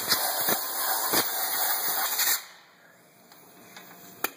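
Compressed-air blow gun hissing as air is blown over a freshly washed engine block to dry it, cutting off about two and a half seconds in. A sharp click near the end.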